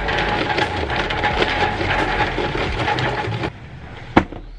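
Charcoal briquettes pouring from a bag into a metal charcoal grill, a continuous rattling clatter that stops abruptly about three and a half seconds in. A single sharp knock follows shortly before the end.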